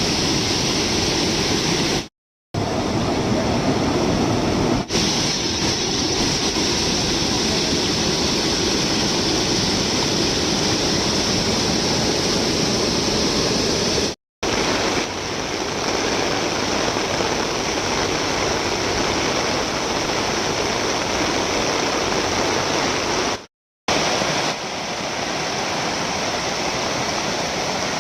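Fast-flowing floodwater rushing steadily. Three brief silent gaps break the rush where clips are joined.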